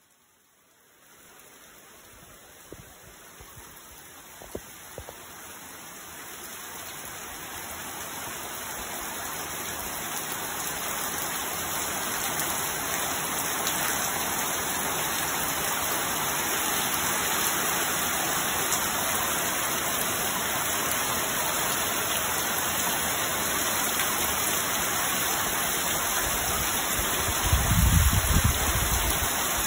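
Heavy rain pouring down during a night storm, quickly growing louder over the first ten seconds or so and then falling as a steady downpour, with a few sharp drips early on and a brief low rumble near the end.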